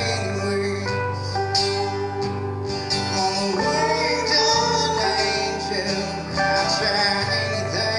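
Live band music: an acoustic guitar strumming under an electric guitar lead line that bends notes.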